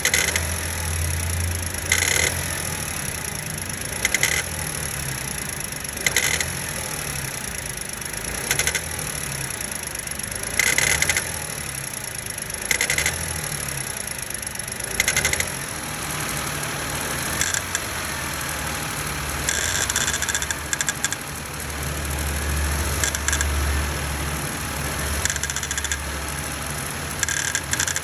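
Suzuki Wagon R's R06D three-cylinder engine running, with a grinding noise (gari-gari) that recurs about every two seconds: the abnormal noise comes from the fan belt's auto-tensioner.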